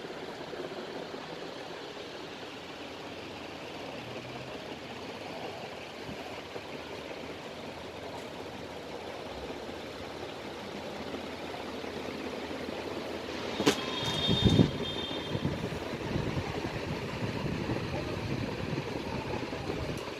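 Steady background rumble and hiss. About two-thirds of the way in comes a sharp click, then a few heavy low thumps and a short high-pitched beep.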